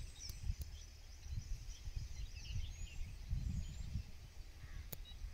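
Quiet outdoor ambience: faint bird chirps and a few short rising whistles over a low, uneven rumble on the microphone, with one sharp click near the end.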